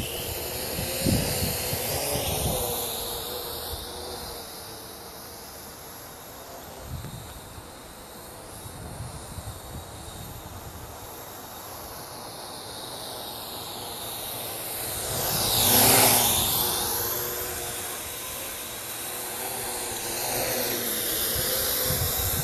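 Parrot AR.Drone quadcopter's rotors whirring in flight, the sound swelling and fading as it moves nearer and farther, with sweeping shifts in tone. It is loudest as it passes close, about two-thirds of the way through.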